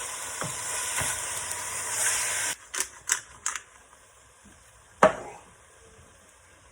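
Food sizzling in a frying pan with a few light utensil taps, cutting off suddenly about two and a half seconds in. A few quick clicks follow, then about five seconds in a single loud clank with a short ring.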